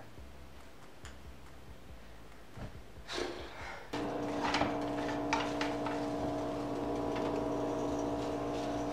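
Quiet room tone, then about four seconds in a steady multi-tone hum starts. A few light scrapes and taps sound over it as a silicone spatula stirs scrambled eggs in a nonstick frying pan.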